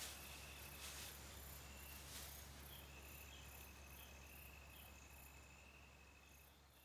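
Faint chirping insects: regular high chirps about three a second over a thin steady tone, fading near the end.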